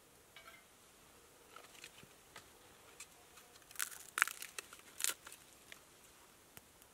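A small packet crinkling and tearing as it is handled and opened by hand, a scatter of light crackles that bunch into a louder flurry about four to five seconds in.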